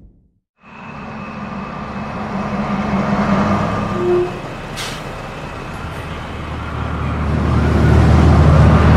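City bus engine running at a stop, with one short sharp sound about five seconds in, then growing louder as the bus pulls away near the end.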